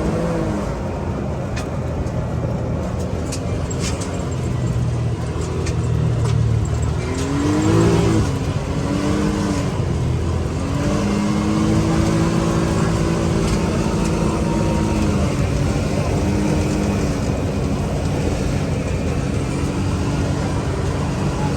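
Can-Am Maverick X3 Max UTV's three-cylinder turbocharged engine running under way, revving up and down in pitch and then holding steady. A few sharp clicks are heard in the first few seconds.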